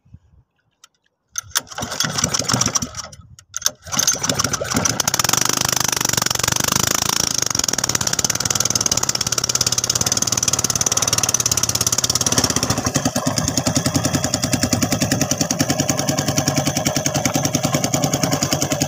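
Small red petrol engine of a wooden fishing boat being started by hand. It catches about a second and a half in and dies again after a couple of seconds, then fires about four seconds in and keeps running steadily. About twelve and a half seconds in its sound changes and settles lower.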